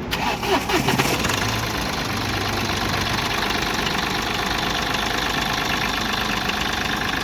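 Mahindra Bolero's diesel engine starting, uneven for about the first second, then idling steadily: it runs again after its failed fuel pump and its injectors were repaired.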